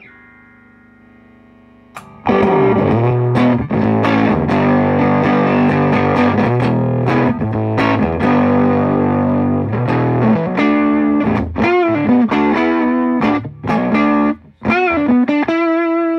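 Electric guitar played through a modded Ibanez TSA15 valve amp with a 6V6 power tube, turned up into overdrive. After a faint ringing, loud distorted chords start about two seconds in and sustain, giving way near the end to single notes with vibrato.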